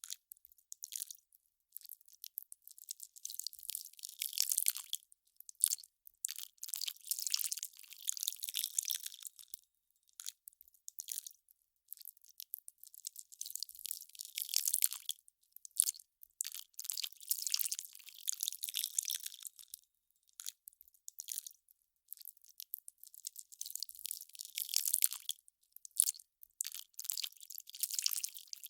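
Melting ice crackling: irregular clusters of small, sharp crackles, each lasting a second or two, with short silent gaps between.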